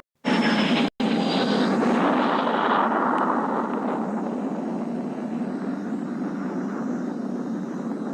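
Loud rushing noise that begins abruptly after a moment of silence, drops out briefly about a second in, then carries on and slowly fades.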